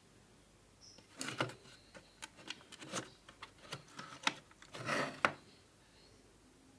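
Packaging being handled during an unboxing: a run of sharp clicks and short rustles, with two louder rustling bursts about a second in and near five seconds.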